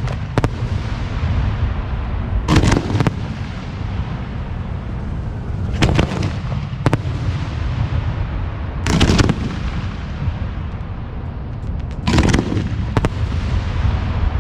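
Aerial firework shells of a 1.3G display, 4 to 6 inches, booming as they burst, about every three seconds and sometimes two in quick succession, over a continuous low rumble and crackle.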